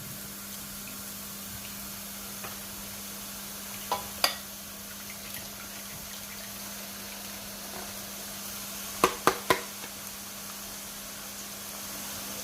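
Gram-flour boondi batter frying in hot oil, a steady sizzle, under a constant low hum. Sharp knocks cut in: two close together about four seconds in and three in quick succession about nine seconds in.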